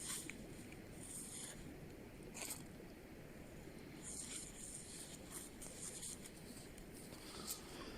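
Faint, scattered scratchy rustles and scrapes, a few short strokes spread over several seconds.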